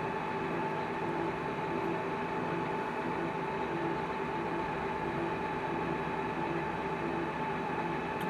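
LeBlond Makino Regal 15 servo-shift lathe running steadily, a constant machine hum with a steady whine riding over it.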